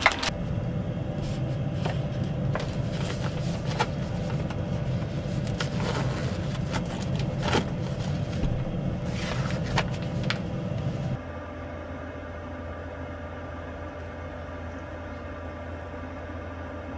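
A steady low mechanical hum runs under scattered clicks and rustles from kitchen prep: a cardboard box of cooking sheets handled and a sheet laid on the cutting board. About eleven seconds in, the hum drops suddenly to a quieter, lower drone.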